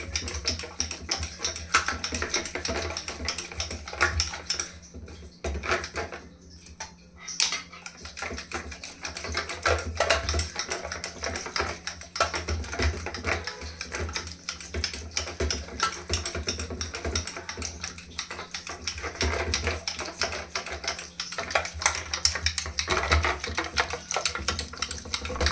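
Wooden hand churner spun back and forth between the palms in a steel saucepan of yogurt, clattering with fast, continuous clicks against the pan as the curd is churned smooth. The clicking thins out briefly about five to seven seconds in.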